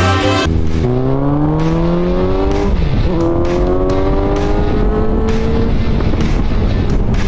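Suzuki motorcycle's inline-four engine accelerating hard through the gears: the revs climb, drop at a shift about three seconds in, climb again more slowly, then hold steady.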